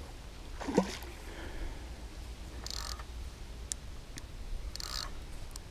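A hooked carp splashing at the water's surface near the bank, two short splashes a couple of seconds apart. About a second in there is a brief squeak that falls in pitch.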